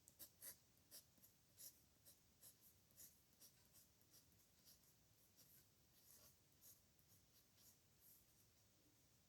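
A pen nib scratching across paper in short, irregular handwriting strokes, faint and high-pitched.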